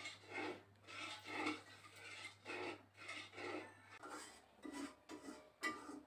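Peanuts being rubbed together to loosen their skins: a dry rasping that swells and fades about twice a second, giving way to a looser, irregular rustle about four seconds in.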